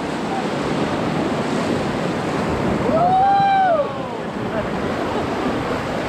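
Rushing white water of a river rapid churning around an inflatable raft, with wind buffeting the microphone. A single rising-and-falling shout rings out about three seconds in.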